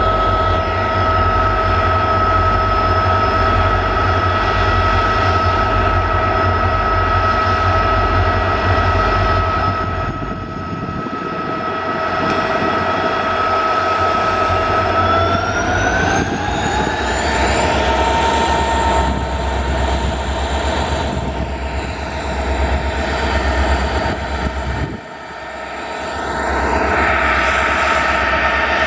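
Twin EMD WDG4 (GT46MAC) diesel locomotives, two-stroke 16-cylinder 710 engines with turbocharger whine over a deep rumble, running steadily at first and then rising in pitch about halfway through as they are notched up to high power to start a heavy loaded freight train on an up gradient.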